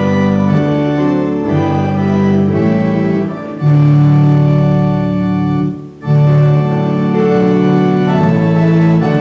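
Church organ playing slow, sustained chords, with a brief break between phrases about six seconds in.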